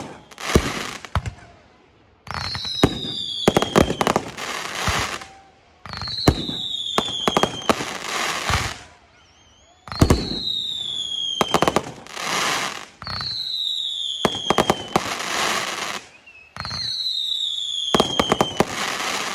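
Fireworks going off in five volleys about four seconds apart. Each opens with a falling whistle and sharp bangs, then a couple of seconds of crackling, with short quiet gaps between volleys.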